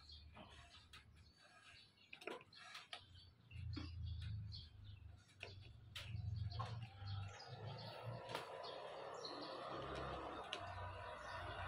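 A screwdriver clicks and scrapes against a plastic number-plate holder as its screws are driven in, making scattered sharp ticks. Birds chirp faintly in the background, and a broad rushing noise builds over the second half.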